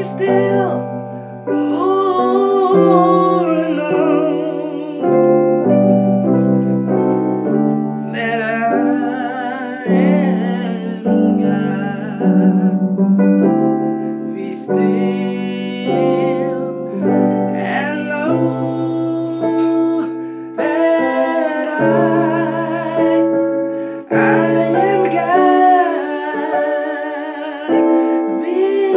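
A voice singing a slow worship song over held electric keyboard chords, the melody sung with a wavering vibrato.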